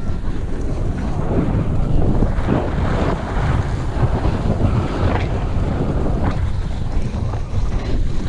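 Wind buffeting the microphone of a camera moving at speed down a ski slope, a steady low rumble, with swishes of edges scraping over packed, groomed snow about once a second as the rider turns.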